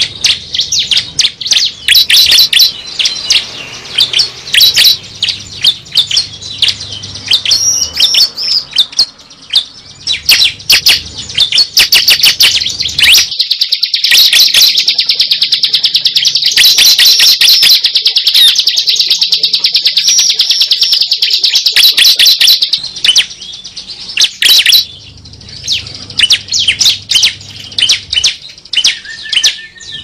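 Recorded song of a prinia (ciblek, the bar-winged prinia) played as a bird lure: strings of rapid, high chirps and trills, with one long unbroken trill from about halfway in to about three quarters of the way through.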